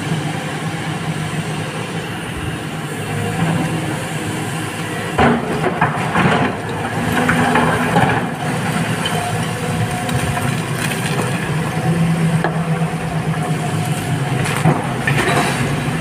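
Heavy diesel machinery running steadily at a truck-loading site, with several sharp knocks around the middle and one near the end.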